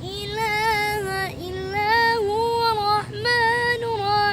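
A high female or child voice sings the names of God as an unaccompanied nasheed, holding long, ornamented notes in short phrases, over a low steady hum.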